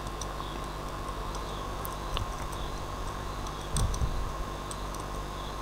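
A few faint, sparse computer keyboard key clicks over a steady electrical hum, with a soft low thump about four seconds in.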